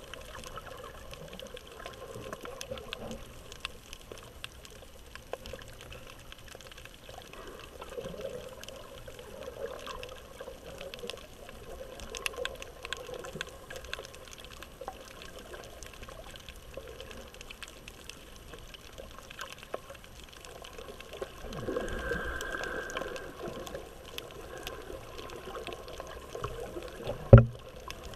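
Underwater sound picked up by an action camera in its waterproof housing over a coral reef: steady water noise scattered with faint clicks, a louder swell of noise lasting about two seconds past the two-thirds mark, and one sharp knock near the end.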